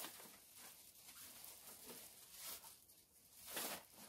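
Faint rustling and crinkling of a full black plastic garbage bag being handled and set down, with a few soft swells.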